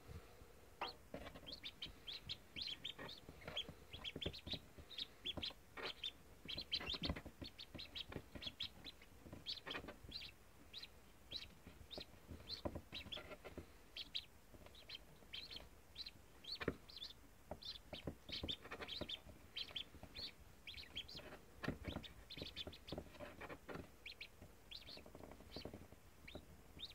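Freshly hatched ducklings peeping: many short, high cheeps, several a second, with a few soft knocks among them.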